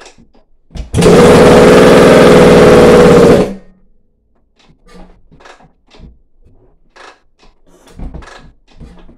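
Suzuki RM-Z four-stroke single-cylinder dirt bike engine, kick-started on its first starts after new valves: it fires about a second in, runs loudly and steadily for about two and a half seconds, then dies. After that come scattered knocks and clicks and a thump near the end as the kick-starter is worked again.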